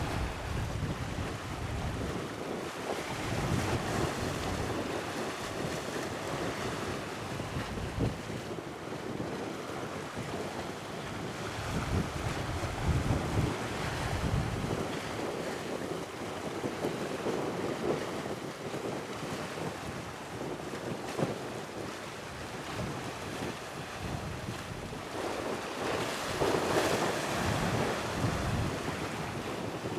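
Wind buffeting the microphone in low gusts over the steady wash of sea waves, with a louder wave swelling near the end.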